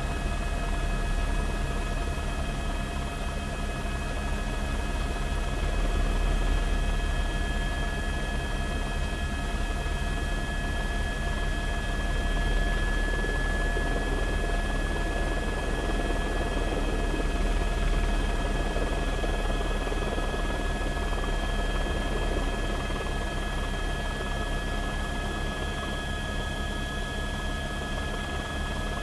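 Steady drone of a news helicopter hovering, a low rumble with a high, constant turbine whine over it.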